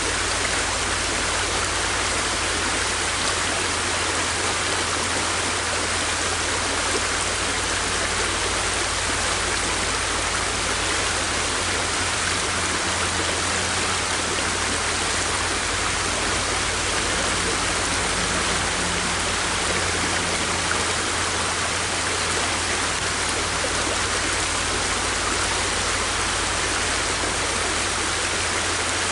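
River water rushing steadily, a dense even hiss with no breaks or changes.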